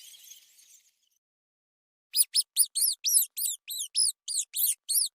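Rat squeaking: a rapid series of about a dozen short, high-pitched squeaks, each note rising then falling, starting about two seconds in after a brief silence.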